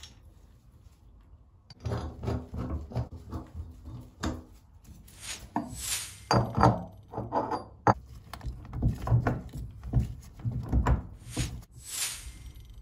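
Knocks, clunks and scraping of metal fittings and an adjustable spanner being handled under a bath as the tap backnuts and flexible hose nuts are tightened, starting about two seconds in. Rustling swishes come in the middle and again near the end.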